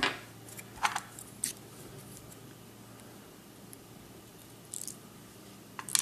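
A few sparse, light metallic clicks of steel tweezers and small brass lock parts being handled while the top pins are taken out of a disassembled Schlage lock core; the loudest click comes at the very end.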